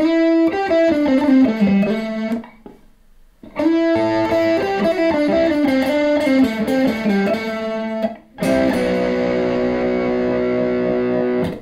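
Line 6 Variax electric guitar through an amp with a distorted, overdriven tone: a descending single-note phrase played twice with a short pause between, then a held chord that rings for about three seconds and is cut off sharply.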